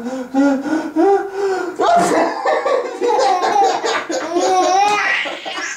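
People laughing hard in repeated bursts of voiced laughter, with a short sharp burst of noise about two seconds in.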